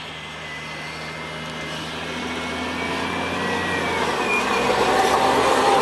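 Eight-wheeled armoured vehicle driving past, its engine running and growing steadily louder as it approaches, with a higher whine over the engine note.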